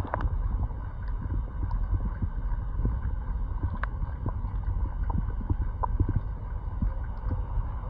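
Fish feeding on bread at the surface of a lake: scattered small splashes and pops, irregular and unevenly spaced, over a steady low rumble.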